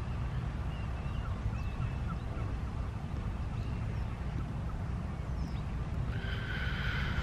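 Outdoor shoreline ambience: a steady low rumble with faint, brief bird calls scattered through it, and a held higher tone for about a second near the end.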